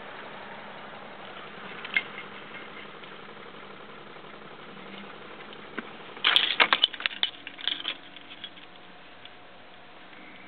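Clicking from inside a 1994 BMW E36 318is that won't start: one click about two seconds in, then a rapid burst of clicks lasting under two seconds, over a steady hum. The clicking comes with the no-start fault, the dash lights blinking on and off although the battery has power.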